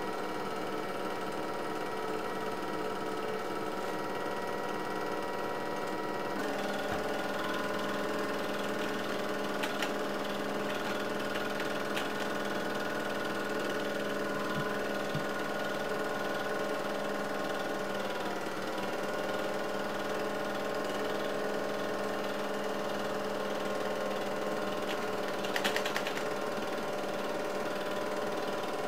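Steady mechanical whir and rapid clatter of an 8mm film projector running, with a short burst of clicks near the end.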